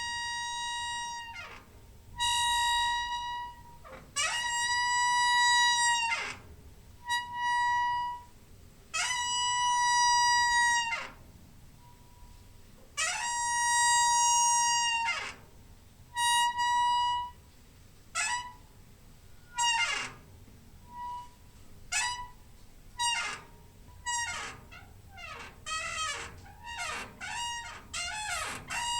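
Squeaking door hinge: a series of high, pitched squeals. First come several long held squeals, each dropping in pitch as it stops, then in the second half shorter, quicker squeaks that bend up and down in pitch.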